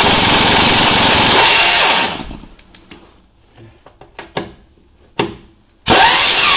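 A small AIRCAT pneumatic impact wrench hammering on a 9/16 bolt in two loud bursts, the first running about two seconds and the second starting near the end. Between them, a few sharp metallic clicks.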